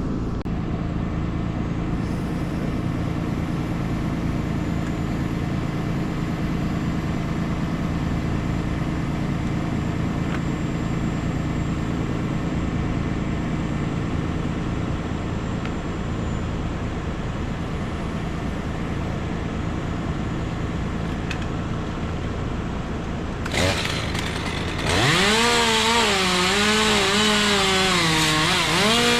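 Chainsaw idling steadily, then about 25 seconds in revving to full throttle and cutting into wood, its pitch wavering under load.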